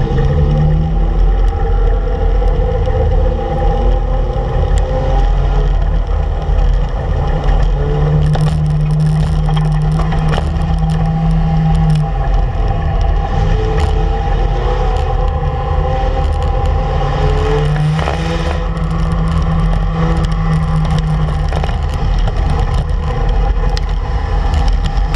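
Race car engine running hard, heard from inside the stripped, roll-caged cockpit, its pitch climbing and levelling off several times as the throttle is worked. Short knocks and rattles come through over it.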